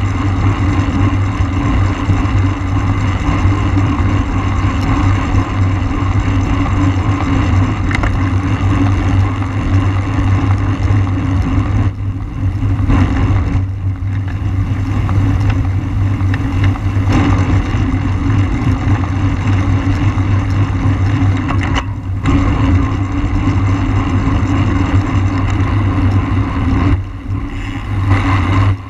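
Steady wind rushing over the microphone of a camera carried on a road bike at race speed. It dips briefly about four times.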